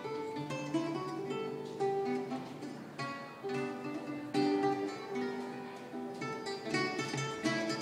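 Solo acoustic guitar played live: a melody of plucked notes over lower bass notes.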